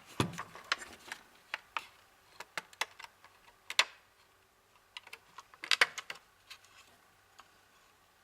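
Irregular clicks and taps of small plastic and metal parts being handled: a server power supply's fan being wiggled and pulled at inside its casing to free it from its mount. The clicks come in small clusters and thin out near the end.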